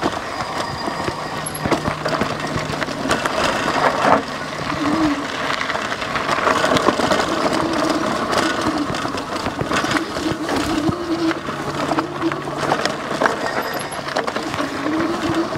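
Lectric XP 3.0 e-bike clattering over a rough, rocky trail, its parts and carried gear rattling and banging with every bump, over a constant noise of the fat tyres on dirt and rock. A steady low hum sounds at the start and again about twelve seconds in.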